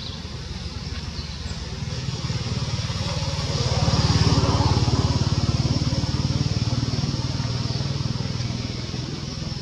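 A motor vehicle's engine passing by, growing louder to a peak about four seconds in and then slowly fading.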